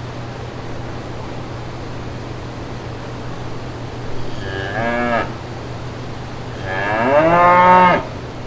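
Cattle mooing twice: a shorter moo about four seconds in, then a longer, louder one near the end, over a steady low background hum.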